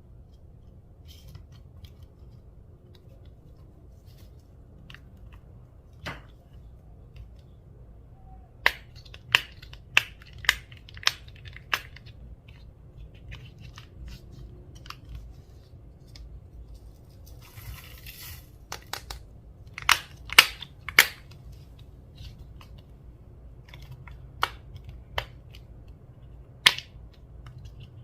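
Slime being pressed and stretched by hand, its air pockets popping in sharp clicks: a quick run of about six, a cluster later, a few single pops near the end, and one short crackling hiss in the middle.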